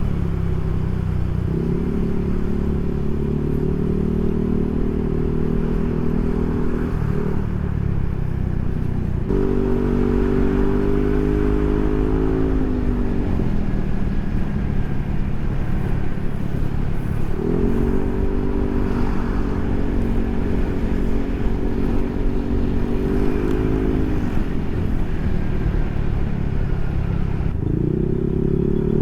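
Yamaha NMAX scooter's single-cylinder engine running through an aftermarket Proliner SR Neo Silent exhaust while riding. The engine note holds steady, sinks as the throttle eases off about a third of the way in and again later, and picks up again near the end.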